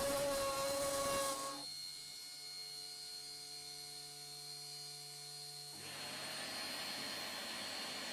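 Small electric motor of a homemade hand-held micro router running with a steady whine. About one and a half seconds in it changes abruptly to a quieter, low, even hum for about four seconds, then turns to a broader, noisier running sound.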